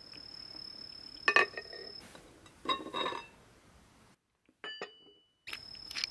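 Ceramic and glass tableware clinking as dishes are set down on a wooden table, each clink ringing briefly. There are two clinks in the first half and a quick run of several more near the end. A steady high thin tone runs underneath.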